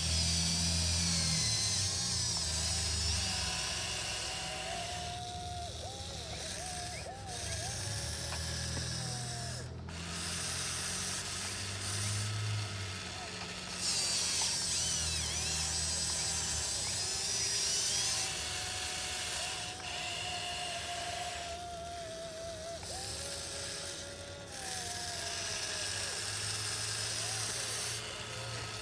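Electric motors of a 1580 RC model excavator whining as the boom, arm, bucket and swing move, the pitch rising and falling with each movement; the high whine is loudest at the start and again about halfway through.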